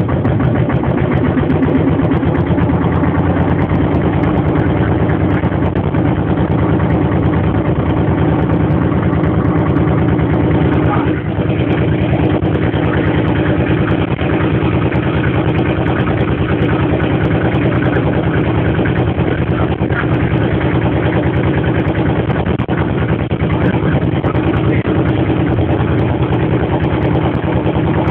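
Motorboat engine running steadily at a constant speed.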